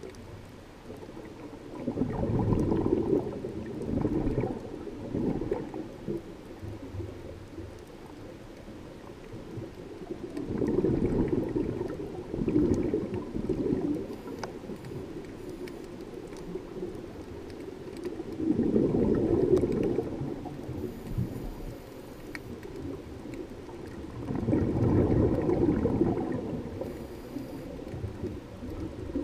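Scuba regulator exhaust bubbles from a diver breathing out, heard underwater through a GoPro waterproof housing. Four bursts of bubbling, each a few seconds long, come about every seven to eight seconds over a low, steady water hiss.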